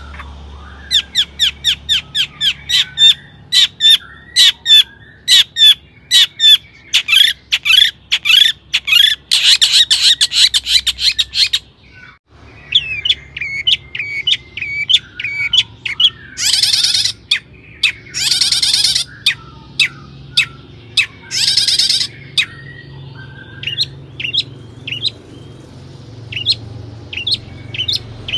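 Long-tailed shrike (cendet) singing: a quick run of sharp repeated notes for about twelve seconds, a brief pause, then three long harsh rasping calls, then scattered short chirps.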